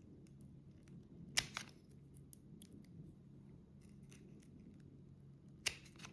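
Wire-stripping tool snipping and stripping insulation off the thin wires of an NMEA 2000 cable: a sharp snip about a second and a half in, another near the end, with faint small ticks between.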